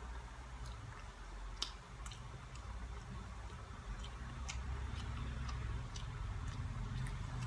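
Close eating sounds: a person chewing boiled banana and dried fish, with small wet clicks of lips and fingers scattered about every half second, the sharpest about one and a half seconds in, over a low steady hum.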